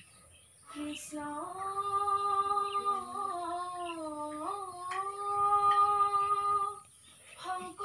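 Children singing an Assamese devotional dihanaam, opening with one long drawn-out note that bends a little in pitch. The note breaks off near the end and the singing starts again.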